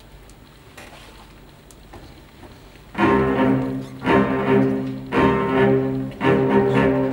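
A string ensemble of violins, cellos and double bass enters about three seconds in, after quiet hall noise, playing loud repeated bowed chords, one accented stroke about every second, each swelling and fading.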